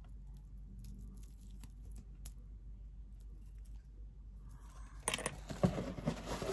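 Amethyst chip bracelet's stone beads clicking faintly as it is turned in the hand, then, about five seconds in, kraft paper and tissue packing rustling loudly as a hand reaches into a cardboard box.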